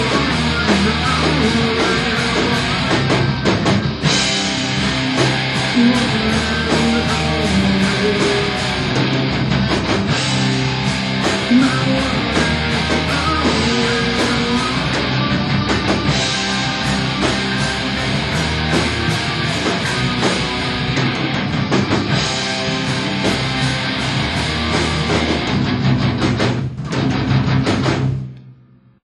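Rock band practice recording: guitars, bass and drum kit playing a song with no singing, stopping near the end and dying away within about a second.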